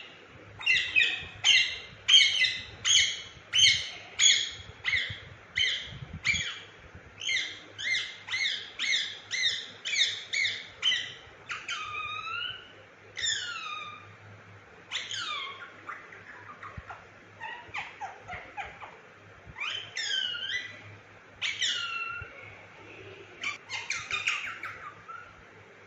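Indian ringneck parakeet calling: a run of sharp, shrill squawks repeated about twice a second for some ten seconds, then a string of separate calls that each slide downward in pitch, and a quick flurry of calls near the end.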